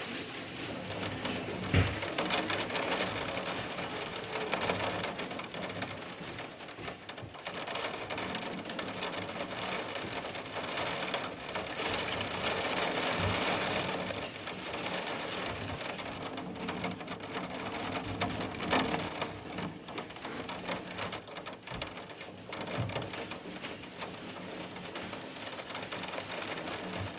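Rain pattering on a surface in waves that swell and ease, with a dull thump about two seconds in.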